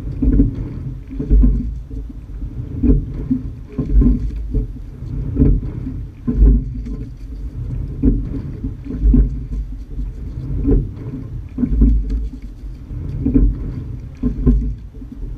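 Sculling shell being rowed: water rushing along the hull and the oars working in a steady stroke rhythm, the sound swelling and easing about every one and a half seconds, over a low rumble.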